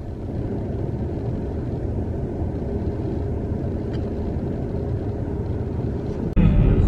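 Steady low rumble of a car's cabin noise, with a faint hum. A little before the end it jumps suddenly louder.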